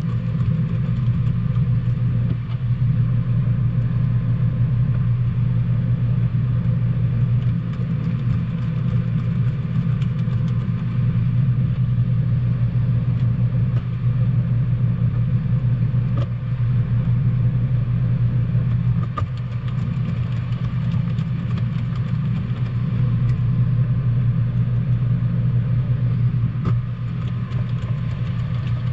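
A steady low mechanical drone, like a motor or engine running, with a few faint clicks over it.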